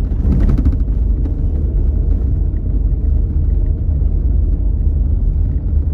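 Steady low rumble of a car driving along a city street: road and engine noise.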